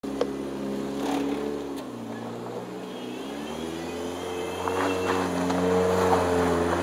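Lowered Chevrolet S10 pickup's engine revving as it spins doughnuts on bald tires in light snow. The revs dip about two seconds in, then climb again, and the sound grows louder near the end as the truck swings closer.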